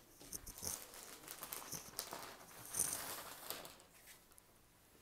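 Silk stole being handled and moved about, an uneven rustling and crinkling with its loudest flurry a little before the middle, then dying down to a hush.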